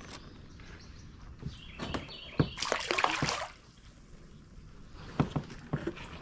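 Water splashing and sloshing at a kayak for about a second near the middle, with a few scattered knocks before and after.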